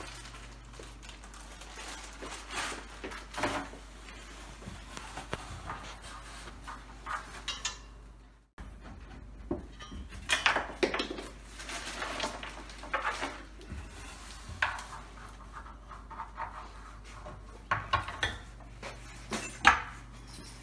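Loose bolts and nuts clinking and the metal table legs knocking as they are handled and fitted onto the upside-down foosball table frame: irregular metallic clinks and clatters over a low steady hum, with a brief break about eight and a half seconds in.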